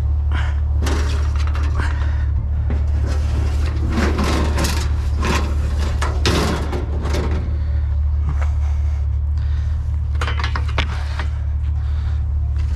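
Irregular clattering and scraping of scrap items being handled, over a steady low rumble.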